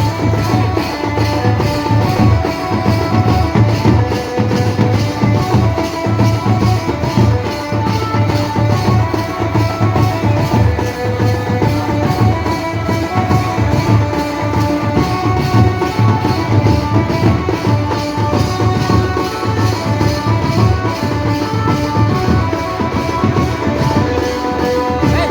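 Band baja playing a tune: drums keep a fast, even beat under a melody of short notes.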